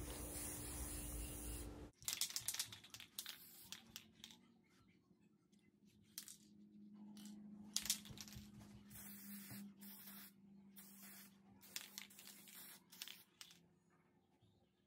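Aerosol spray-paint can hissing faintly: one steady spray that cuts off suddenly about two seconds in, then a series of short, separate spurts.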